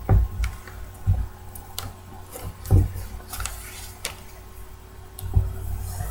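A sheet of A4 paper being folded and creased by hand: light rustles and crinkles, with four dull thumps spread through it as the paper is pressed and handled.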